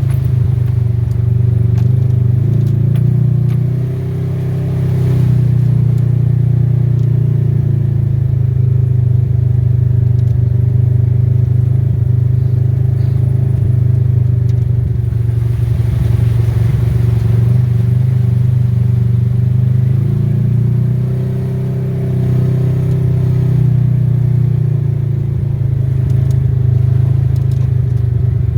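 Off-road vehicle engine running steadily while driving, with light rattling and clatter. The engine note shifts a few seconds in and again about two-thirds of the way through.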